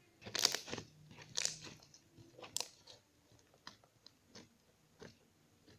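Freshly made glue slime being squeezed and worked by hand, giving wet crackling and popping clicks. Three louder crackles come in the first three seconds, then softer single clicks.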